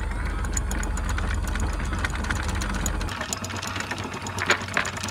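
Anchor windlass hauling in the anchor chain, with rapid metallic clanking of the chain links over a low machine hum that drops away about three seconds in.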